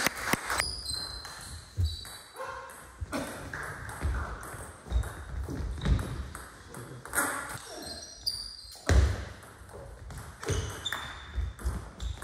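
Table tennis ball being hit back and forth in a rally: sharp, ringing clicks as it strikes the players' bats and bounces on the table, coming in quick, irregular succession.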